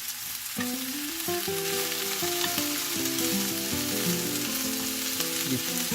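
Spicy chicken feet frying in a pan: a steady sizzle of seasoned sauce in a nearly dry pan that is catching and burning rather than giving off liquid. Background music with a melody of held notes plays underneath.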